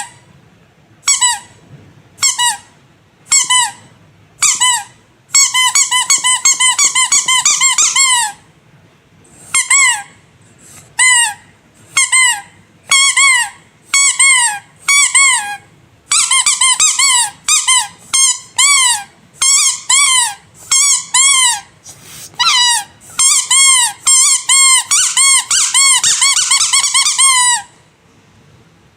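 Rubber squeaky animal toy being squeezed over and over, each squeak rising then falling in pitch. Single squeaks about a second apart alternate with quick runs of rapid squeezes, and the squeaking stops shortly before the end.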